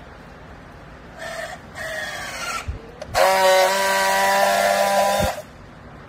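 Battery-powered handheld strapping tool on a plastic strap around a clothes bale. A motor whir sags slightly in pitch as the strap is tensioned, then come a couple of clicks. A louder steady buzz lasts about two seconds as the tool friction-welds the strap, and it ends in a sharp click.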